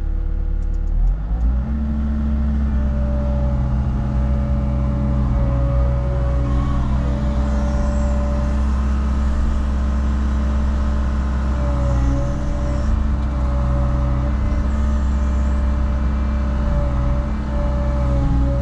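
Cat 306 mini excavator's diesel engine running steadily, stepping up in speed about a second and a half in, with a steady hydraulic whine over it as the machine works.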